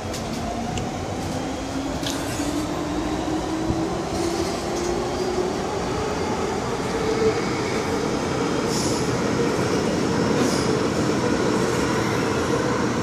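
MTR M-Train electric multiple unit pulling away and gathering speed, its motor whine rising steadily in pitch over the rumble of wheels on the track, growing louder throughout, with a few brief high squeaks.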